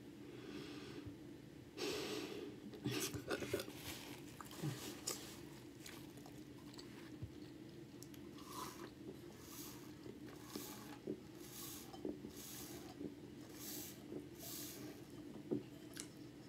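Close-miked chewing with wet mouth clicks, then sipping a sparkling drink through a straw from a can, as a regular series of short sucks about every 0.7 s.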